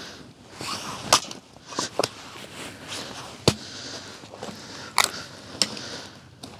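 Axe chopping wet firewood: about six sharp strikes at irregular intervals, the one midway a deeper thud.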